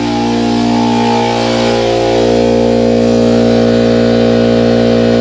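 Ridgid portable air compressor running, a steady hum and hiss from its motor and pump as it works to build the tank back up while air is being drawn off to blow out the sprinkler lines. The tank pressure is low.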